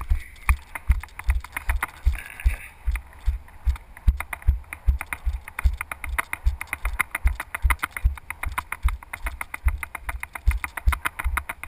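Running footfalls on dry mown grass, jolting a body-worn camera with every stride: a steady rhythm of dull thumps, about three a second, each with a light crunch.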